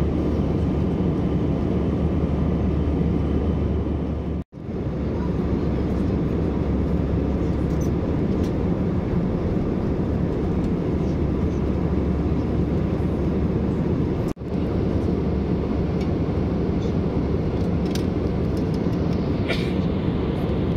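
Steady cabin noise of an Airbus A320 in cruise: a low rush of jet engines and airflow heard inside the cabin. It cuts out briefly twice.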